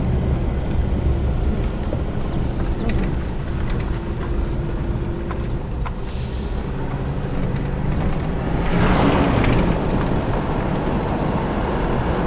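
Car driving on a paved road, heard from inside the cabin: steady engine and tyre rumble, with a louder rush of noise about nine seconds in.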